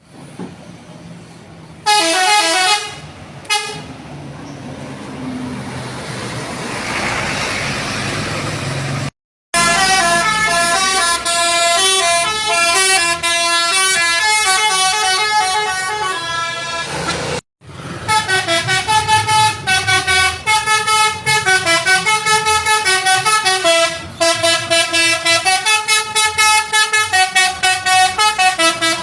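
Indonesian tour buses' basuri telolet horns, multi-tone musical air horns, playing melodies in quick stepped notes, in separate clips cut off abruptly twice; the last clip pulses out rapid repeated notes. Around four to nine seconds in no horn plays, only steady noise.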